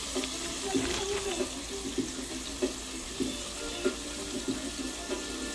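Flour-dredged cube steaks frying in oil in a stainless steel skillet: a steady sizzle with occasional sharp pops and crackles.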